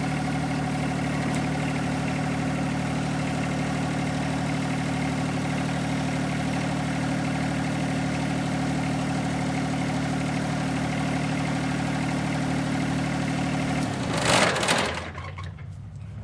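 John Deere 1025R compact tractor's three-cylinder diesel idling steadily, then shut off about fourteen seconds in with a brief loud burst of noise as it stops.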